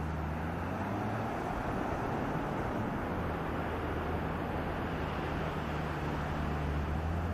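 A vehicle engine running with a steady low hum, under a constant rushing noise.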